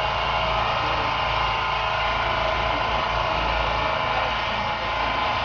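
An engine running steadily at idle: a constant loud drone that does not change in pitch or level.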